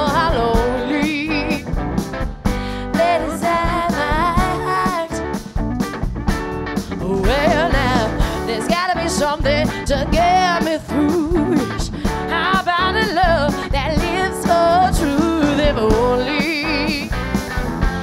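Live band music: drum kit, electric guitars, bass and a horn section playing an up-tempo rock-soul song, with a woman's voice singing over it.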